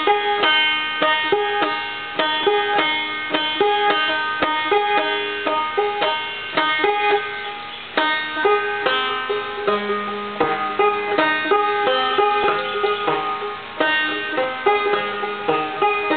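Banjo played clawhammer style: a steady, rhythmic run of plucked notes that ring over one another.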